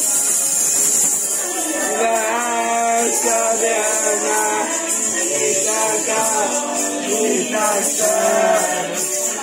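Background music: an upbeat song with a singing voice.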